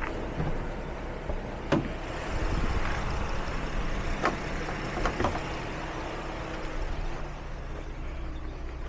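A vehicle engine idling steadily, with a few short sharp clicks about two, four and five seconds in.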